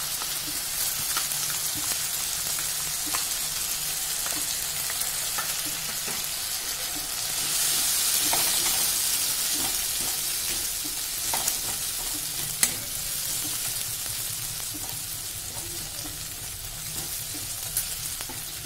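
Green peas and spice pastes frying in oil in a metal kadai while a metal spatula stirs them: a steady sizzle that swells for a few seconds near the middle, with scattered sharp taps and scrapes of the spatula against the pan.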